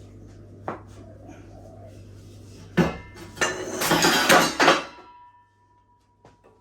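Metal clanking: steel parts knocking together with a ringing tone. There is a single knock about a second in and another near the middle, then a burst of loud clattering and ringing for about a second and a half that dies away.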